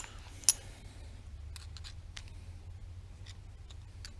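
Small parts of an air ratchet being handled and picked at: one sharp click about half a second in, then a few faint scattered ticks over a low hum.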